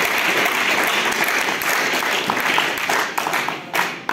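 A roomful of students applauding, a dense steady clapping that thins into scattered single claps in the last second and dies away.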